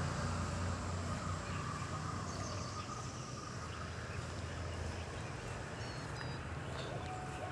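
Birds chirping briefly a few times over a low steady rumble, with lower calls near the end.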